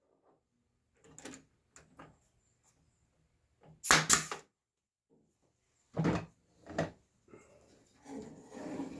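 A brad nailer fires once about four seconds in, driving a 1-inch brad into a mitred wooden frame corner; it is the loudest sound, a sharp double crack. Lighter taps and knocks of the wood pieces being handled come around it, with two duller knocks near six and seven seconds and a soft rustle near the end.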